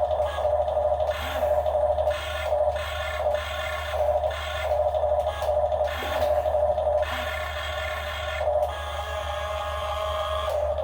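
RC excavator's hydraulic pump motor whining, cutting in and out in short bursts about a dozen times, over a steady low hum.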